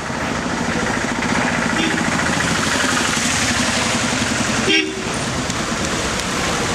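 Street traffic: motor vehicle engines running close by with a steady hum, broken off briefly by a short drop about five seconds in.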